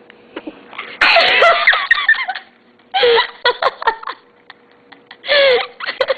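A young girl sneezes about a second in, then laughter breaks out in short bursts.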